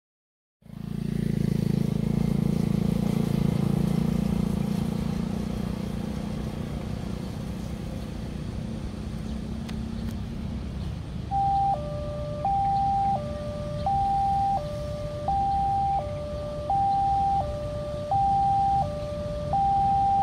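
Electronic warning sounder of an automatic railway level crossing (VIALIS speaker) starting about halfway through: a repeating two-tone alarm, one steady tone alternating with a lower-and-higher double tone, a cycle about every one and a half seconds, warning of an approaching train. Before it, a vehicle engine runs low and steady, easing off after about ten seconds.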